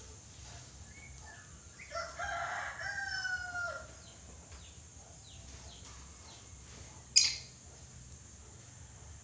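Red lory calling: one drawn-out, harsh call lasting nearly two seconds that falls in pitch at its end. About seven seconds in comes a single short, sharp burst, the loudest sound here.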